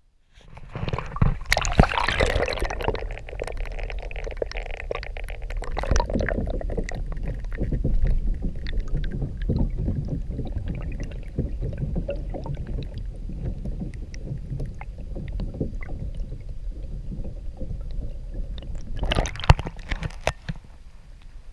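Kayak being paddled on calm water: paddle strokes splashing and dripping, with many small clicks and knocks over a steady low rumble on the microphone. It starts abruptly, with louder splashy stretches near the start and near the end.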